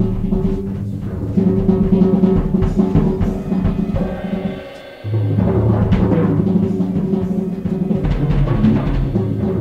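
Instrumental music led by drums, over deep sustained low notes; about halfway through the music thins out briefly, then a deep bass note comes back in with the drums.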